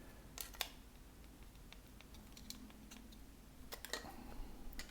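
Faint, scattered small clicks and rattles from a 3D-printed StealthChanger toolhead being worked on its shuttle pins, with a short cluster of clicks about four seconds in. The clicks are the new bushings rattling on the pins because they are too loose.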